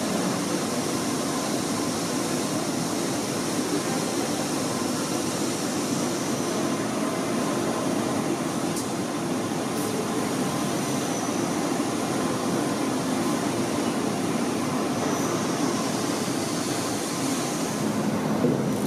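Steady rushing noise with a faint hum, machine-like, unchanging throughout, with a small click shortly before the end.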